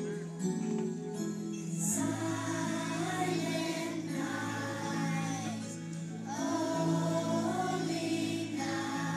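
Young children's choir singing together over an instrumental accompaniment that holds long, steady notes beneath the voices.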